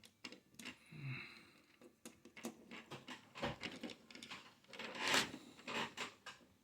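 Small clicks, taps and rustles of the opened PS4 controller's plastic parts and battery being handled, with a longer scraping rustle about five seconds in.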